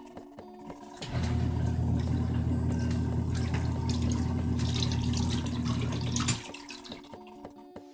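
Portable washing machine's motor running with water churning in the tub: a steady hum starts about a second in and stops about five seconds later, the on-off pattern of the wash cycle.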